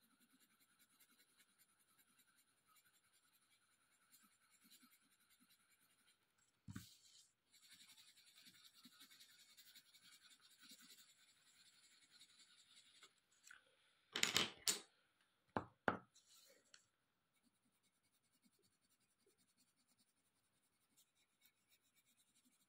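Coloured pencil scratching faintly on paper as it shades in a drawing. A single knock comes about seven seconds in, and a few loud, sharp clicks come about two-thirds of the way through.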